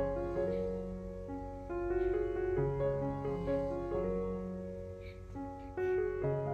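Background piano music, a slow melody of held notes.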